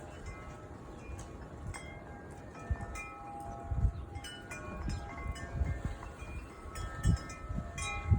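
Wind chimes ringing irregularly in gusty wind, several tones at different pitches struck at random and ringing on over one another. Wind gusts rumble on the microphone underneath.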